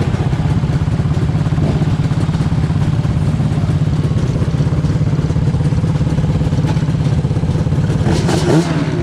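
Yamaha Banshee's twin-cylinder two-stroke engine idling steadily, heard close to its twin chrome expansion-chamber pipes.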